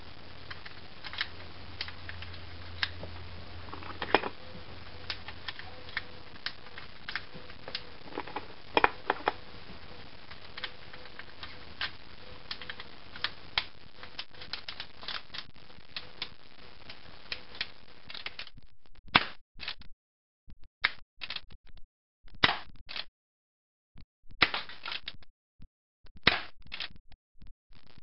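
Tanaka Colt Single Action Army airsoft revolver being handled and loaded: a run of small metal clicks as the cylinder is turned and cartridges are worked through the loading gate. About two-thirds of the way in, a few louder clicks follow at intervals of a second or two.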